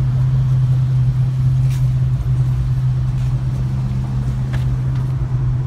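Car engine idling close by: a loud, steady low hum that holds an even pitch.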